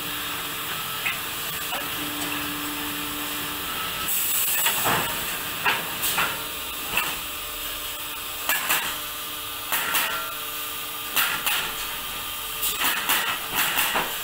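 Olimpia Chiodatrici T30 pallet nailing line running. A machine hum sounds on and off at first, a short hiss comes about four seconds in, then irregular sharp clacks and knocks follow, coming quicker near the end.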